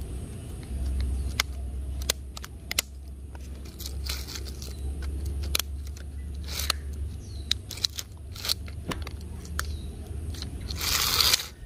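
Plastic toy train track pieces clicking and scraping on a concrete floor as they are fitted together: a scatter of small clicks, with louder scrapes near the end, over a low steady rumble.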